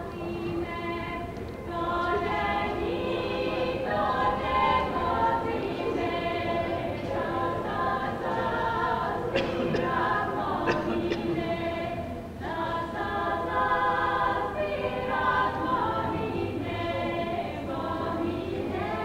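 A small group of women singing a folk song a cappella, several voices together, with short breaks between phrases about one and a half seconds in and again about twelve seconds in.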